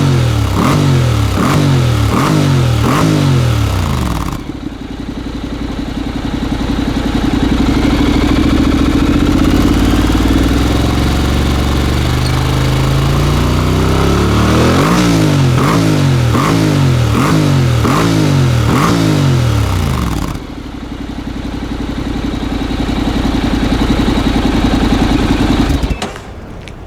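Honda X-ADV's 745 cc parallel-twin engine through a titanium slip-on muffler, revved in quick repeated blips, then held at higher revs with the pitch sliding down and back up, blipped again several times, and run up in a long rise before cutting off sharply near the end.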